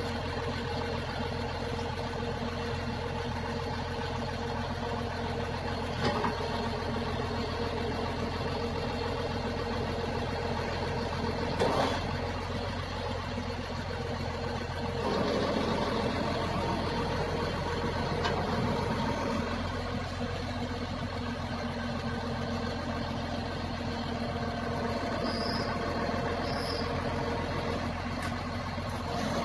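Crane truck's engine running steadily at idle, with two short sharp knocks about six and twelve seconds in; the engine sound grows fuller and louder a little past halfway.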